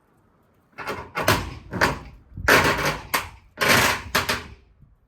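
Shed wall being torn apart during demolition: a run of about six loud knocks, rattles and scraping crashes, starting about a second in and dying away near the end.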